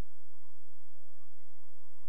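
Background music of sustained, slowly changing notes over a soft, uneven low pulse, with a faint steady high whine.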